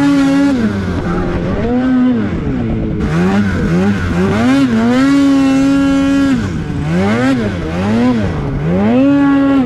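A 2022 Polaris 850 Khaos snowmobile's 850 Patriot two-stroke twin, heard through a Sled Shed Cooker Thing aftermarket silencer, revving up and down under the rider's throttle. There is a string of quick throttle blips between a few longer pulls held at high revs, one about five seconds in and one near the end.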